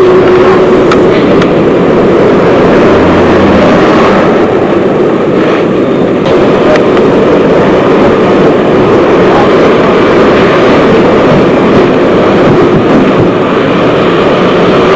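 Diesel railcar running along the line, heard from inside the carriage: a steady mix of engine and wheel-on-rail noise.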